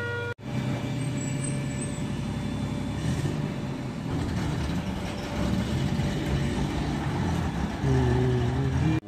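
Motor vehicle engine running, a steady low hum that cuts out for an instant just after the start and grows louder near the end.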